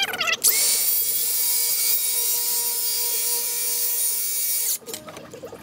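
DeWalt FlexVolt cordless circular saw starting up about half a second in and ripping lengthwise through a kiln-dried hardwood noggin. It makes a steady, high-pitched whine for about four seconds, then stops near the end.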